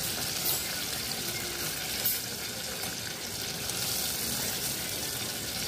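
Breaded chicken wings deep-frying in a pot of hot oil: a steady sizzling hiss, with a single brief click about two seconds in.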